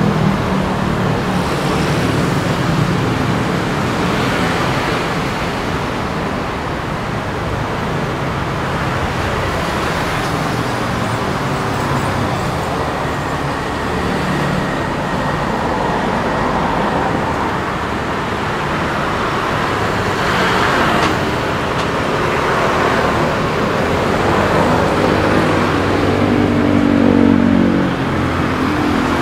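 Steady city street traffic, with engines and tyres running continuously. A vehicle engine passes close near the start and again near the end, where it is loudest.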